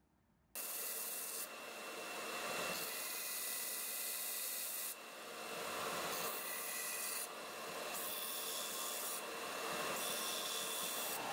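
Sanding: an abrasive rubbing that starts abruptly about half a second in and carries on, changing texture several times as short clips are cut together, with a faint steady high whine underneath.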